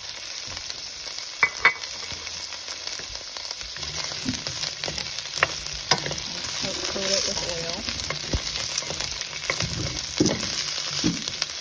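Asparagus pieces sizzling in hot oil in a stainless steel pan, stirred with a wooden spoon that knocks against the pan a few times.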